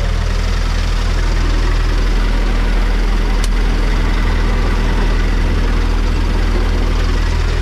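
Truck's diesel engine idling steadily, with a single sharp click about three and a half seconds in.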